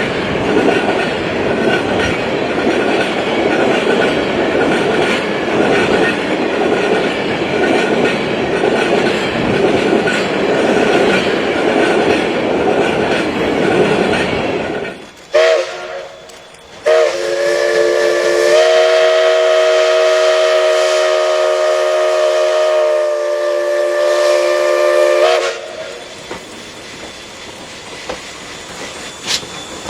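Train running on the tracks with a steady rumble and clatter. About halfway through, its horn gives two short blasts and then one long blast of about eight seconds, several tones sounding together. After that a quieter rumble continues.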